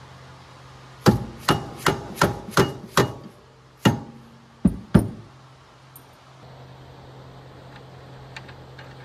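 Hammer striking metal, nine sharp ringing blows: a quick run of six at about three a second, then one more and a final close pair. The blows are the rear wheel hub being tapped onto the ATV's axle.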